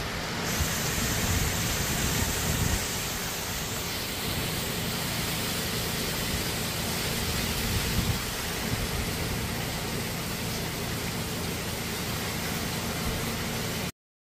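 Heavy typhoon rain pouring steadily while gusty wind thrashes the trees, with a low, uneven rumble of wind under it. It cuts off suddenly near the end.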